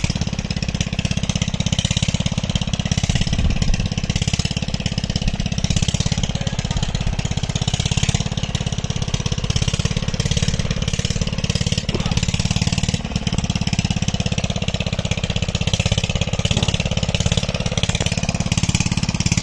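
An engine running steadily with a rapid, even beat that does not change.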